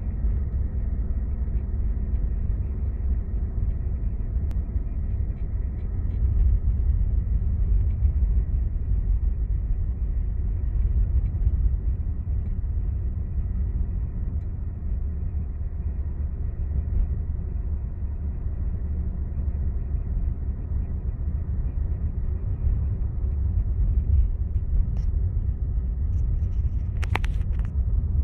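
Inside the cabin of a Ford Sierra with the 2.0i 8-valve DOHC four-cylinder engine, cruising steadily at about 40 km/h: a steady low engine and road rumble from an original, never-opened engine at 300,000 km. A short sharp click or rattle sounds once near the end.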